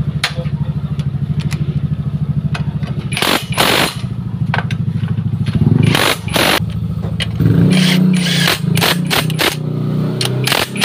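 Cordless impact wrench going off in short hammering bursts of about half a second as it drives the replacement bolts into the scooter's rear brake caliper and swingarm, over a steady, finely pulsing low drone.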